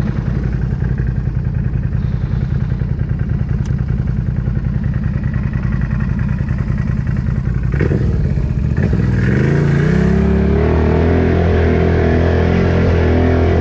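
Can-Am ATV engine running as it rides through a flooded mud trail: a low, pulsing rumble that rises to a higher, steadier note about nine seconds in as the rider gives it more throttle.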